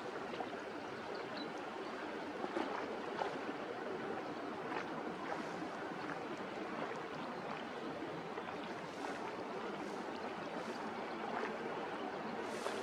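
Harbour water lapping at the shore: a steady wash with small, sharp splashes every second or two.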